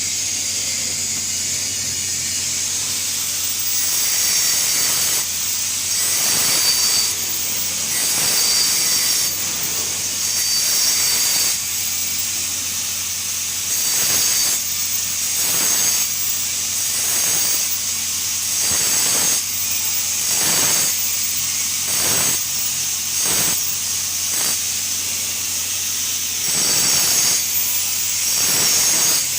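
TIG (gas tungsten arc) welding arc, a steady hiss over a low hum, with short surges in level about once a second.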